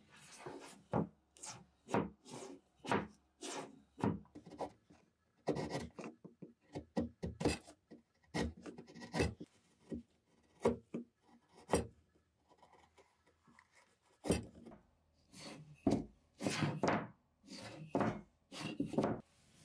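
Hand chisel and other hand tools cutting wood by hand: a quick, irregular series of separate short scraping strokes and knocks, as the joint is pared and shaped.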